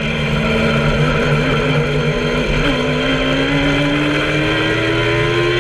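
Kawasaki ZX-10R inline-four motorcycle engine in an open MK Indy kit car, heard from the cockpit under hard acceleration. Its pitch wavers briefly about two seconds in, then climbs steadily as the revs rise.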